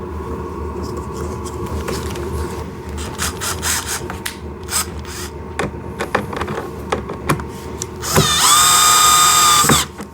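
Small clicks and rattles of parts and screws being handled, then a power drill driving a screw for about a second and a half near the end: a steady whine that spins up and winds down. It is fastening the plastic front bumper of a kids' ride-on car.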